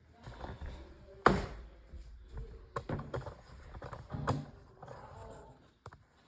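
Wooden bed slats being handled and set in place, with one sharp wooden knock about a second in and several lighter knocks and taps after.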